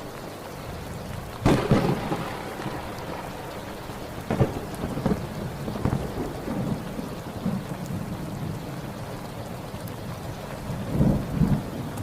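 Steady rain with thunder: a sharp thunderclap about a second and a half in, the loudest, another about four seconds in, a few weaker ones after it, and a rolling rumble near the end.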